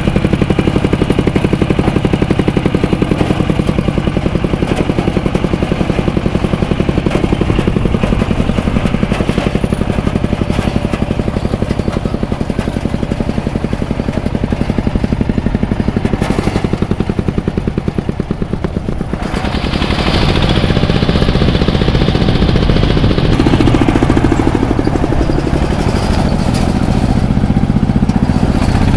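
Engine of a rice combine harvester running steadily with machine clatter. About two-thirds of the way in, it eases off briefly, then comes back louder and fuller.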